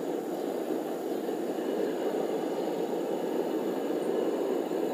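A forge running, a steady, even rushing noise with no hammer blows, while a cable Damascus billet heats in it.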